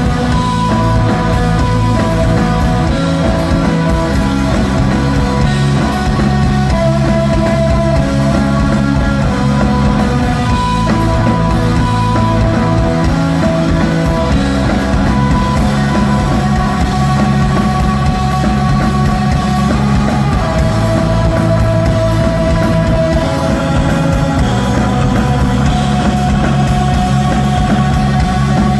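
Live stoner rock band playing loud and without a break: electric guitar, bass guitar and drums.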